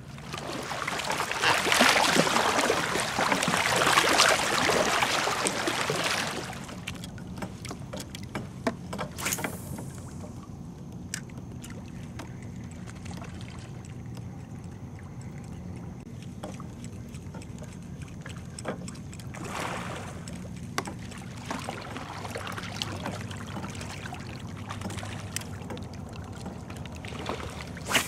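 Water splashing and trickling around a kayak, loudest over the first six seconds and returning more softly later, with a steady low hum underneath and a few small knocks.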